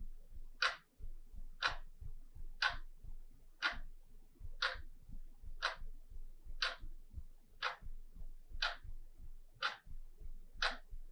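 Wall clock ticking steadily, one crisp tick about every second.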